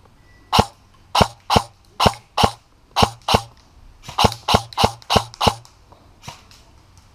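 Krytac Trident airsoft electric rifle firing about a dozen single shots in quick semi-automatic succession, a few tenths of a second apart, with a short pause after the first few and a faint last shot near the end.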